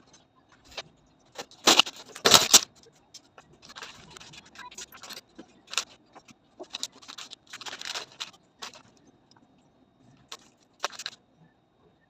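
Unboxed parts and packaging being handled: irregular rustling with sharp clicks and light clinks, loudest about two seconds in.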